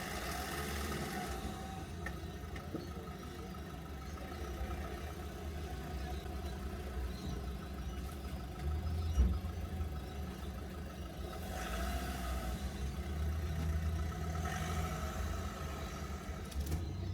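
Steady low rumble of a running vehicle, with a single short thump about nine seconds in.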